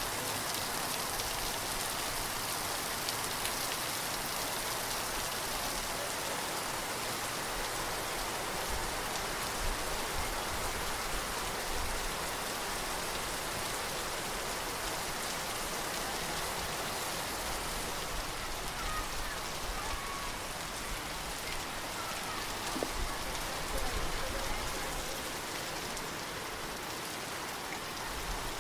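Steady rain falling on surfaces: an even, unbroken hiss of drops.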